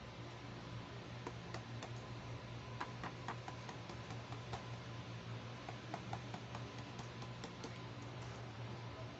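Light, irregular taps and clicks of fingers handling a cardboard doll box with a clear plastic window, over a steady low hum.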